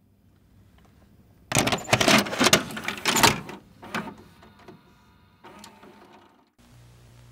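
VHS cassette being loaded into a VCR: a burst of clattering clunks and clicks from the loading mechanism, then a fainter mechanical whir. Near the end, a steady low hum with a faint static hiss sets in.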